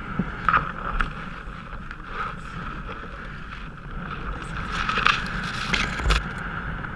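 Tall reed stalks brushing and scraping along a canoe's side as it is pushed through a dense reed bed, with several sharp snaps and knocks, the loudest between five and six seconds in.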